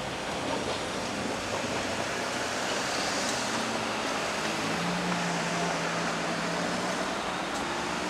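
Steady running noise of a Yokkaichi Asunarou Railway narrow-gauge (762 mm) electric train moving away down the track, with a faint low hum joining about halfway in.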